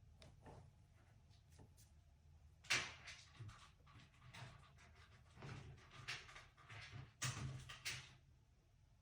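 Handling knocks and clicks as the drill and its charger are handled: a sharp knock about three seconds in, then a cluster of knocks and clicks a little past halfway.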